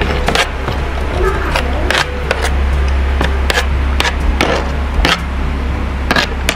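Metal fork and spoon clicking and scraping against a plate of rice and beef, with close-up chewing, over a steady low hum.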